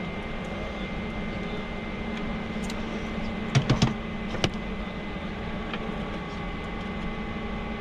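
A steady hum, with a quick cluster of three or four knocks about three and a half seconds in and a single knock about half a second later.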